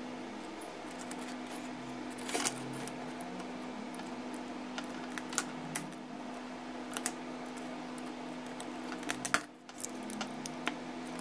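Scattered sharp clicks and taps of a small screwdriver and fingers prying the LCD display off an old pager's circuit board, over a steady low hum.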